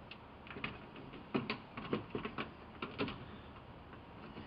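Plastic lower dash trim panel of a Ford Super Duty cab being slid up and pressed into place: a scattered run of light clicks and knocks as it seats.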